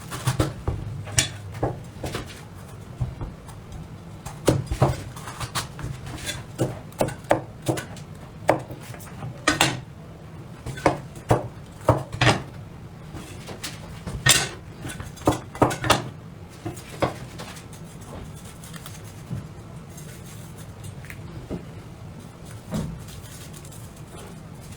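Irregular sharp clicks and knocks of a knife cutting into vegetables and tapping a cutting board. They come thick and fast for the first sixteen seconds or so, then only now and then.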